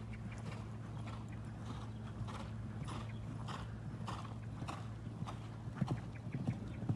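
Horse cantering on a sand arena, its hoofbeats coming in an even three-beat stride rhythm about every 0.6 s, growing louder near the end as it passes close. A steady low hum runs underneath.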